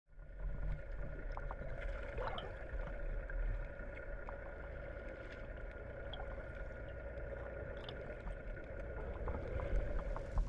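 Steady sound of a boat on water: a wash of water with a faint steady hum and scattered light clicks.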